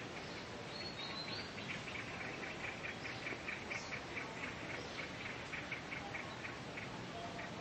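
An insect chirping in a rapid, even series of short high pulses, about five a second, starting about a second and a half in, over a steady background hiss.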